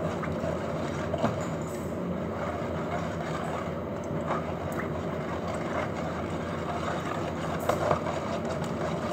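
Wire balloon whisk beating runny cake batter in a plastic bowl by hand: a steady wet swishing, with a few clicks of the wires against the bowl about a second in and again near the end.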